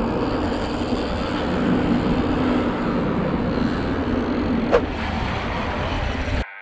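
Wind buffeting the microphone on an open boat offshore, over a steady low hum, with one brief sharp click a little before five seconds in.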